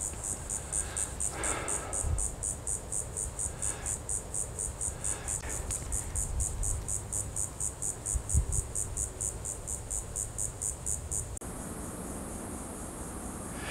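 Insects chirping in an even rhythm, about five pulses a second, over a low rumble. About eleven seconds in, the chirping gives way to a steady high buzz.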